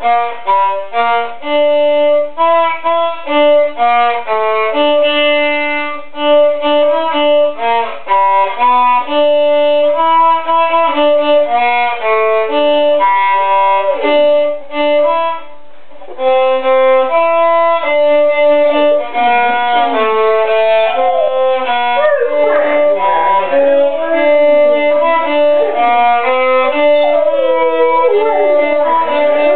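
A violin melody playing note by note while a Labrador howls along, its wavering, gliding howls joining about halfway through and growing stronger toward the end.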